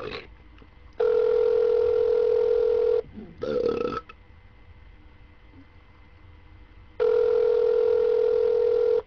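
Telephone ringback tone heard by the caller while the call rings through: two steady two-second rings about four seconds apart, the on-off pattern of a North American ringback. A brief voice sounds between the rings.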